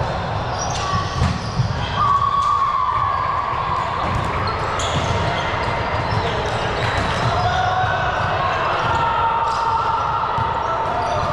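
A ball game in progress in an echoing gym hall: repeated thuds of the ball being hit and landing, with players' voices in the background.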